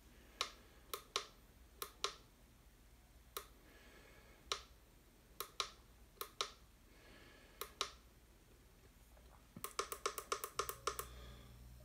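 A vinyl record playing very quietly on a Victrola VPRO-2000 turntable: scattered clicks and pops from the stylus in the groove over faint music, then a quick run of clicks near the end as a low hum comes in. The platter is turning too slow, so the record plays below its proper pitch.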